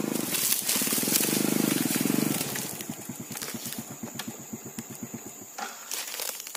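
Small motorbike engine running as the bike rolls up and slows, dropping to an idle of evenly spaced putts, then cutting off about five and a half seconds in, followed by a couple of knocks.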